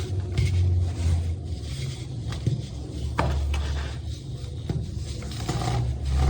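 Baking soda being crushed into crunchy crumbles: a steady low rumble from handling, with scattered sharp crackles and snaps at uneven intervals.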